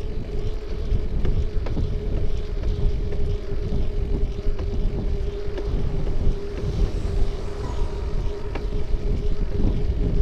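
Wind buffeting the microphone and low road rumble from a camera mounted on a moving bike, with a steady hum and scattered small rattles and clicks from bumps in the road.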